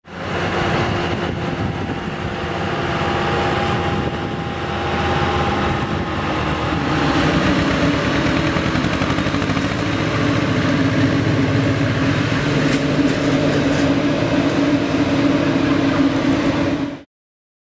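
Heavy farm machinery running steadily: a deep engine drone with a faint high whine above it. It grows louder about seven seconds in and cuts off suddenly near the end.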